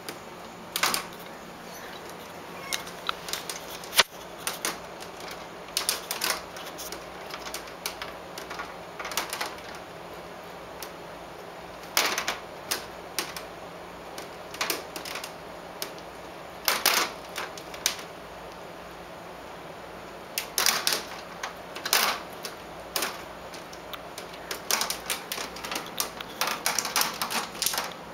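A cat's claws hooking into and pulling free of a window screen's mesh as it climbs, giving irregular runs of sharp clicks and scratches. A single louder click comes about four seconds in, and the clicks come quicker near the end.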